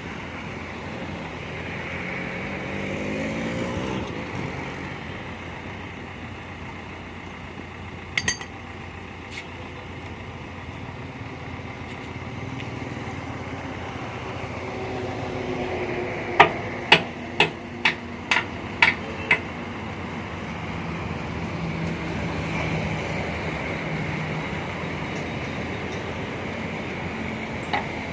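Backhoe loader's diesel engine working, its pitch rising and falling with load, with a quick run of about seven sharp knocks a little past the middle.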